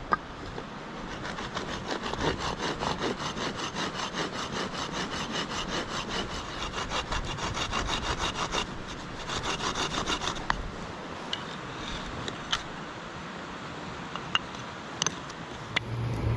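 Hand saw cutting through wood in quick, even back-and-forth strokes, stopping about ten seconds in; a few light knocks follow.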